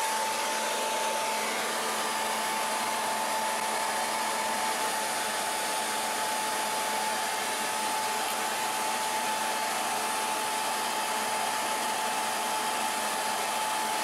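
Hair dryer blowing steadily: a rush of air with a steady motor whine.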